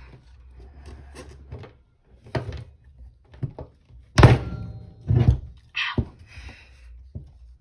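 Hoverboard hub-motor wheel and hand tools knocked about and set down on a wooden table: a string of dull thunks about a second apart, the loudest about four seconds in, with a faint metallic ring after it.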